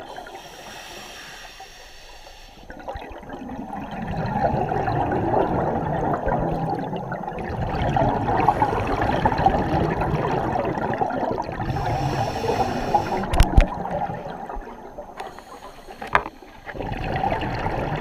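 Scuba regulator breathing recorded underwater: short hissing inhalations alternating with long rushing, bubbling exhalations, twice over. A couple of sharp knocks come a little past the middle.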